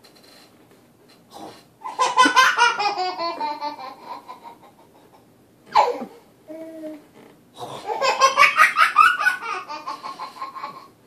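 A baby laughing in two long, rhythmic belly laughs, each sliding down in pitch and trailing off. Between them, about halfway through, comes a short, sharp vocal burst and a brief coo.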